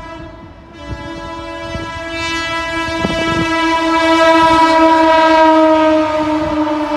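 Indian Railways train's locomotive horn held in one long blast, growing louder as the train approaches; its pitch drops slightly near the end as it passes. Faint clicks of the wheels on the rails run underneath.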